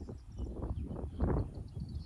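Wind buffeting the microphone in uneven low gusts, surging twice, with faint high bird chirps behind it.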